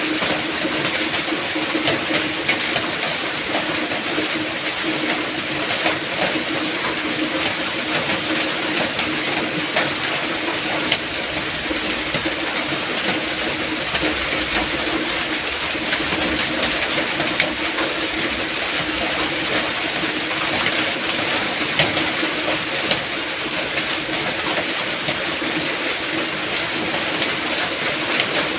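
Steady rain falling, an even hiss with a few sharp drip ticks here and there.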